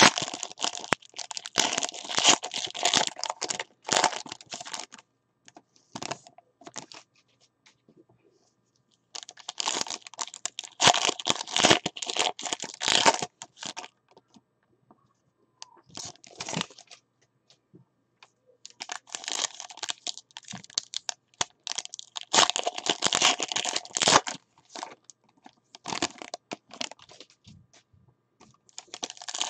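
Foil wrappers of Certified Cuts football card packs crinkling and tearing as they are handled and torn open, in about five spells of rustling with short pauses between them.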